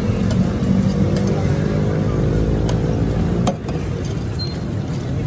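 Steady low rumble of engine and traffic noise, with a pitched engine hum in the middle and a few light metal clicks. A sharp click comes about three and a half seconds in, after which the rumble drops a little.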